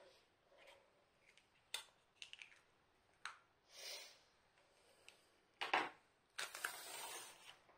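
Faint handling of small craft items and packaging on a wooden tabletop: scattered light clicks and taps, a sharper knock about six seconds in, then a second or so of rustling.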